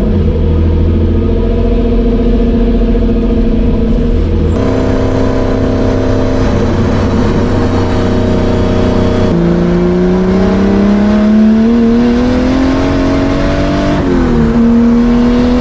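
Turbocharged BMW M52 straight-six in an E30 running under way, its note jumping abruptly twice. In the second half the engine pitch climbs steadily as the car accelerates, drops briefly near the end like a gear change, then climbs again.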